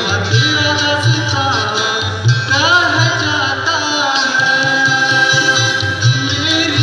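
A live band playing a Hindi pop song through a PA, heard from the audience: a male singer's melody, with bending, ornamented notes from about two and a half seconds in, over acoustic guitar, keyboard and a repeating low beat.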